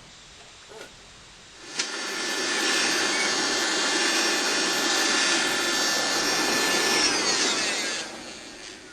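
Small electric air blower of a home-made metal-melting furnace running with a steady whine. It starts suddenly about two seconds in, its pitch shifts near the end, and it cuts off about eight seconds in.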